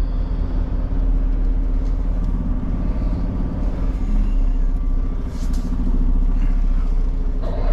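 Semi-truck diesel engine running at low speed while the tractor-trailer reverses into a loading dock: a steady low hum.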